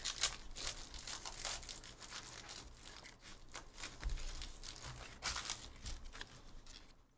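Foil trading-card pack being torn open and its wrapper crinkled by hand as the cards are pulled out, in irregular crackling bursts, loudest near the start and again about five seconds in.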